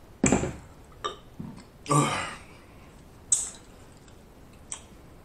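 A man's mouth and throat sounds just after a drink of water: a loud breathy exhale right at the start and a short voiced grunt about two seconds in, with small mouth clicks between them. A sharp click comes a little after three seconds, and a fainter one near the end.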